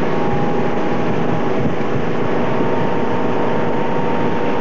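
Tow boat's engine running steadily at speed, a constant drone, over the rush of water from the boat's wake.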